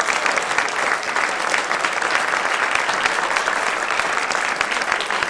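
An audience applauding steadily, dense clapping that eases a little near the end.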